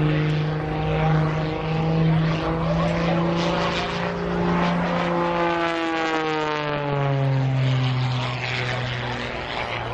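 Oracle aerobatic biplane's propeller engine droning overhead, with a steady pitch that falls between about five and eight seconds in.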